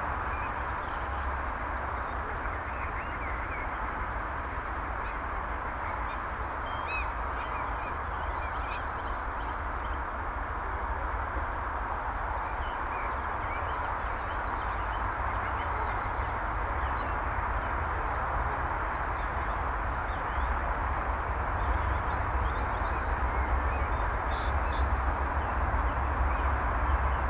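Short faint calls of several wild birds, chirps and whistles, scattered all through, over a steady background hiss and a low rumble that grows a little louder near the end.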